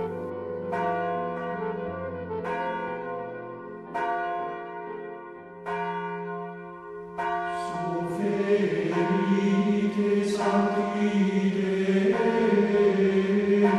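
Church bells ringing: single struck notes every second or two, each ringing on. About eight seconds in, a louder held, wavering chord of chant-like tone joins under the bells.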